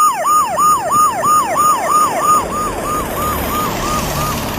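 Emergency vehicle siren in a fast repeating yelp, each cycle a quick falling wail, about three a second, fading away over the few seconds. A low rumble comes up partway through.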